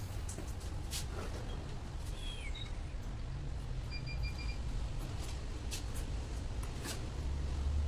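Steady low hum with scattered light clicks and knocks, and a short run of high electronic beeps about four seconds in.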